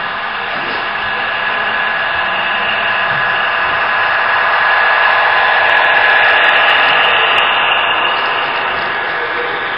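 HO-scale model diesel locomotives running past, a steady whirring hiss with a thin whine in it that swells as the lead units go by and eases off near the end.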